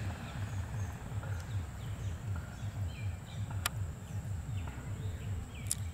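Open-field ambience: a low rumble pulsing about three or four times a second, with scattered faint chirps of small birds and two sharp clicks, one past the middle and one near the end.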